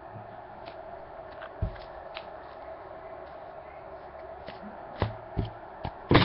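Trading cards being handled and shuffled by hand, with a few soft taps and clicks, over a steady background hum. Right at the end a louder burst of crinkling begins, like a card pack wrapper being torn open.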